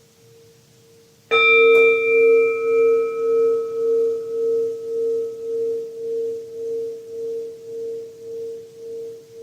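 Singing bowl struck once about a second in, ringing out with a slow pulsing wobble as it fades. The tone of an earlier strike is still ringing faintly before it.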